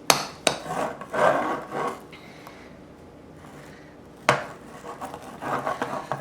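A spoon stirring and scraping a thick marshmallow and powdered-sugar mix in a bowl, with a few sharp knocks against the bowl: at the start, about half a second in, and about four seconds in.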